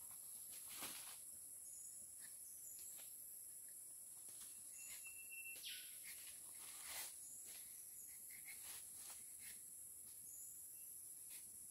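Faint forest ambience: a steady high drone of insects, with a bird calling once about halfway through, a held note and then a long falling one, and a few faint clicks and scrapes.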